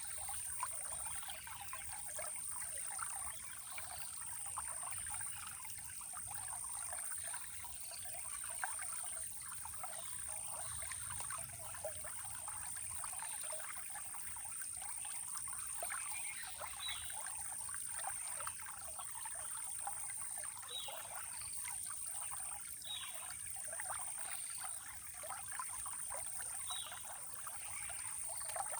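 Running water trickling and splashing steadily. A bird gives short falling chirps several times in the second half, over a steady high-pitched hiss.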